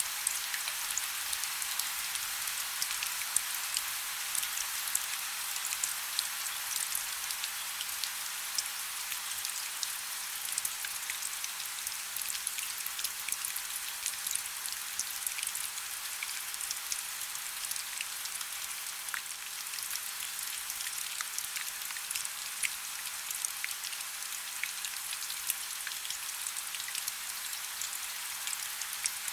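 Heavy rain falling steadily, an even hiss scattered with the sharp ticks of individual drops.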